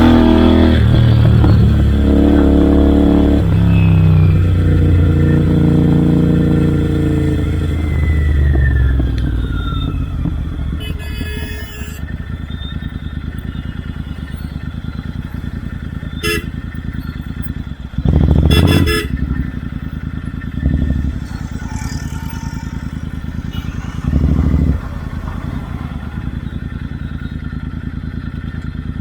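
Royal Enfield Interceptor 650's parallel-twin engine through Red Rooster Performance aftermarket exhausts, loud under throttle at first. Its note falls as the revs drop, then settles to a steady low run with three short throttle blips in the second half.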